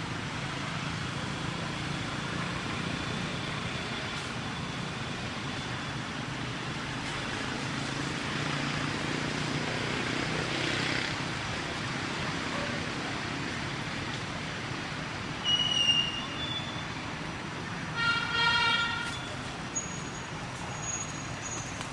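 Steady background traffic noise from passing vehicles, with a short high-pitched toot about eighteen seconds in and a few faint high chirps near the end.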